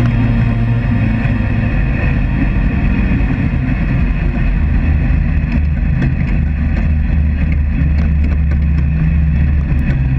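Sand rail dune buggy engine running hard as it drives across sand, its note rising and falling with the throttle.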